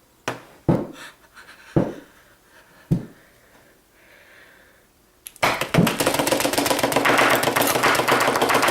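Four separate knocks or thuds, spaced unevenly over the first three seconds. Then, a little past halfway, a loud, dense clattering starts and keeps going.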